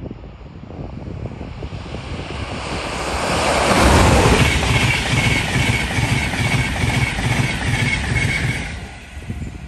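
An LNER Class 91 electric locomotive and its Mark 4 coaches pass close by on an electrified main line. The noise builds to a peak about four seconds in as the locomotive goes by. Then come a rapid rhythmic clatter of wheels and a steady high whine as the coaches pass, and the sound drops away near the end as the train moves off.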